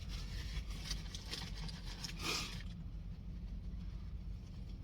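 Steady low hum inside a parked car, with faint rustling and a short scrape a little over two seconds in.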